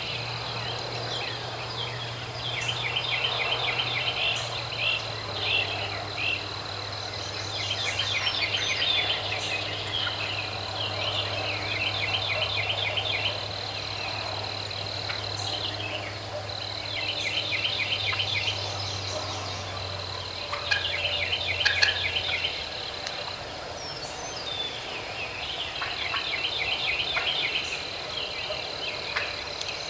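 Spring outdoor wildlife ambience: bursts of rapid trilling calls every few seconds over a steady high-pitched buzz, with scattered high chirps. A low distant hum runs underneath, steps down in pitch and fades out about two-thirds of the way through.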